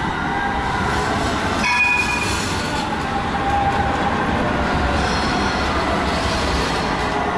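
Low-floor street tram running past at close range on embedded rails: a steady rolling rumble and rattle of its wheels and bogies, with faint high wheel-squeal tones and a brief brighter high tone about two seconds in.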